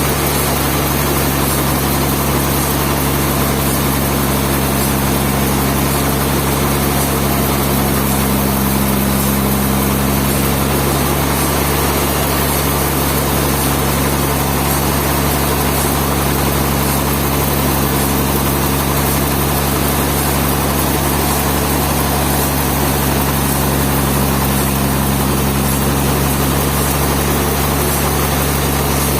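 Sawmill machinery running steadily: a continuous engine drone that holds the same low pitch throughout.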